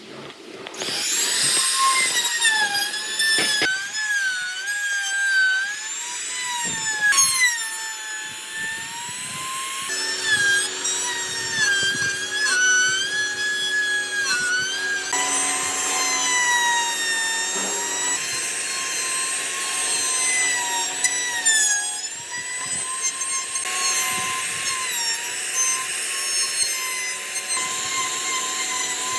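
Electric power tool working hardwood, a continuous high motor whine whose pitch keeps dipping and recovering.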